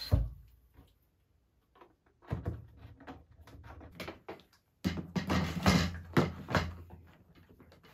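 Plastic clunks and knocks as a water tank is set into a stand garment steamer's base and pressed down, loudest about five to six and a half seconds in. There is a single thump right at the start.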